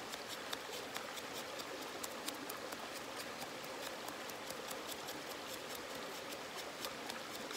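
HELLE Eggen knife blade shaving thin curls down a wooden stick to build a feather stick: a quick, irregular run of short, light scraping strokes.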